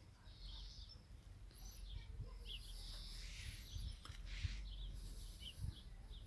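Small birds chirping, with many short chirps and a few high, thin arched whistles, over a faint low rumble. A short hiss or rustle about four seconds in is the loudest moment.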